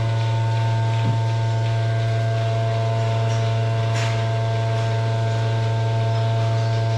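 Steady low electrical hum with several fainter steady tones above it, and a couple of faint knocks.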